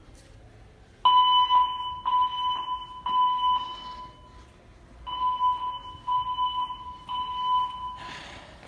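Fire alarm speakers sounding a high beep tone in the temporal-three evacuation pattern: three short beeps, a pause, then again, repeating about every four seconds. The tone starts about a second in.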